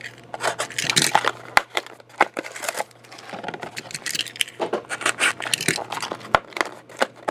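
Plastic wrapping crinkling and tearing as a sealed trading-card box and pack are opened, with a few sharp taps.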